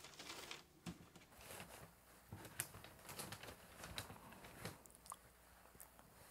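Faint rustling and soft taps of a terry-cloth towel being spread across the table and a sheet of wet printmaking paper laid on it and smoothed by hand.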